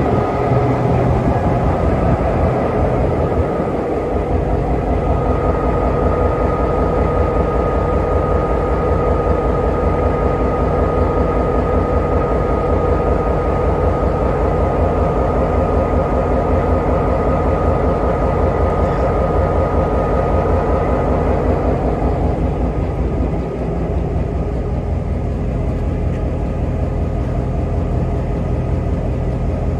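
NSW 421 class diesel locomotive's Alco engine idling close by, with a steady rapid low throb. A high steady whine sits over it and fades out about three-quarters of the way through.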